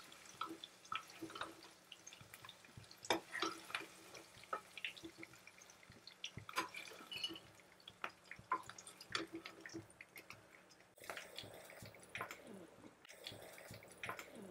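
Hot frying oil in a kadai crackling faintly, with small irregular pops and spits as fried paneer cubes are lifted out of it.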